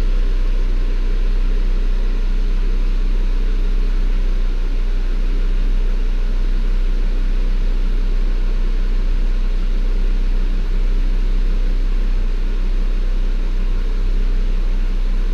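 Audi RS3's turbocharged 2.5-litre five-cylinder engine idling steadily after a remote start, a constant low rumble.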